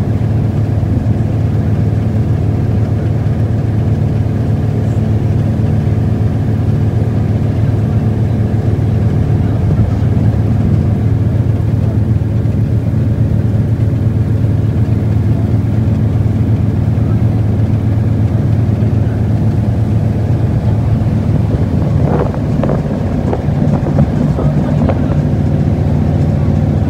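A river cruise boat's engine running steadily: a low, even drone.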